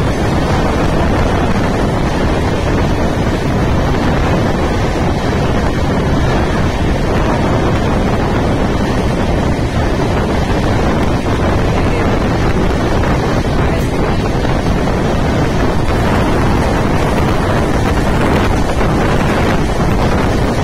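Loud, steady wind rushing over the microphone together with the running rumble of a moving train.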